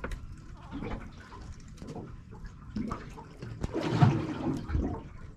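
Water sloshing and slapping against the hull of a drifting fishing boat, in irregular gurgling surges with a louder splash about four seconds in.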